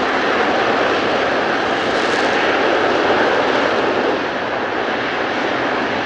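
The twin General Electric J79 turbojets of an F-4EJ Kai Phantom II running on the runway: a loud, steady jet roar that eases slightly about four seconds in.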